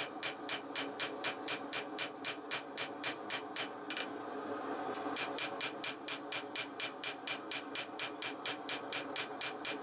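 Hand hammer striking a red-hot 1084 steel knife blank on an anvil in quick, even blows, about four a second. The blows pause for about a second some four seconds in, then carry on.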